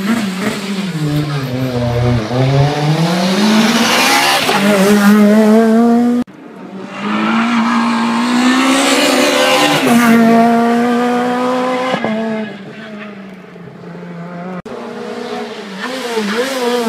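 Rally car engines revving hard as cars pass, the pitch climbing under acceleration and dropping sharply at gear changes and lifts. The sound breaks off abruptly a few times as one car gives way to the next.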